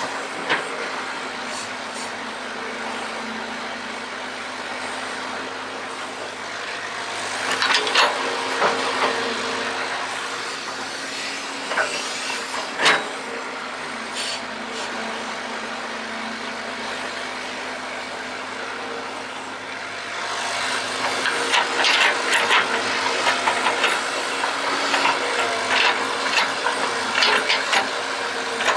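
Excavator engine running steadily, with scattered knocks and scrapes of digging, growing into a busier stretch of clatter and scraping in the last third.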